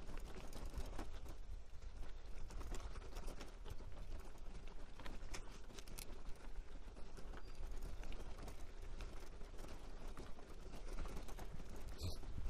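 Bicycle rattling and clattering as it rides fast over a rocky, gravelly dirt trail, with tyres crunching on stones and irregular knocks from the bike. Wind rumbles steadily on the microphone.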